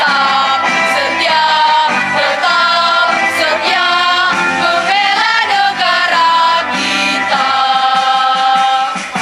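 A girls' school choir singing an Indonesian national song together, full-voiced, phrase after phrase without a break.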